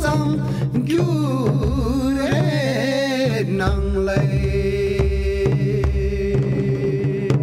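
Old Ladakhi folk song: singing over instrumental accompaniment with a steady beat.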